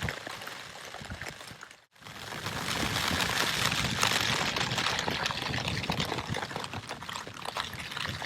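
Heavy rain pattering on a tent: a steady rushing hiss scattered with small drop ticks. It cuts out for a moment about two seconds in, then comes back louder.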